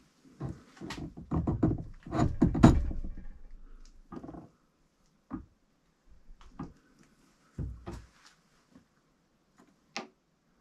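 A drill press worked as a hand press, pushing a Rohloff Speedhub hub cap and its bearing onto the gearbox through a home-made press tool: a quick run of metal knocks and clunks over the first four seconds or so, then a few single knocks.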